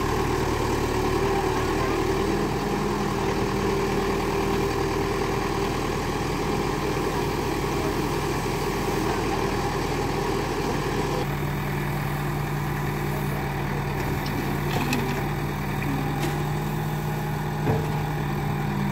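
Diesel engines of a Case 770 backhoe loader and a Mahindra B275DI tractor running steadily while the backhoe digs and loads soil. The engine note shifts abruptly about eleven seconds in, and there is a single thump near the end.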